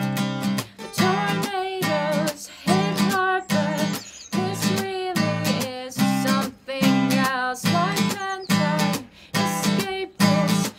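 Acoustic guitar strummed in a steady rhythm, with a woman's voice carrying a wavering melody over it.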